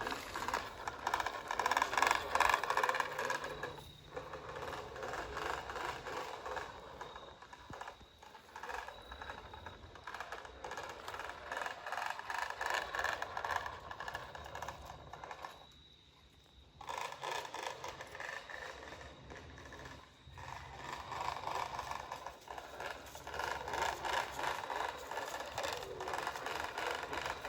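Dense rattling and scraping while seed is sown by hand, with a brief lull about sixteen seconds in.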